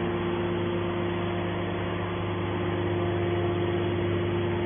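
Hydraulic can baler's motor and pump running with a steady, even hum.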